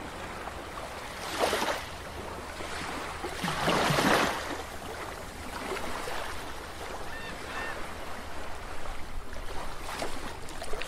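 Sea-water sound effect: a steady wash of surf-like noise with two swelling surges, about one and a half and four seconds in, the second one longer.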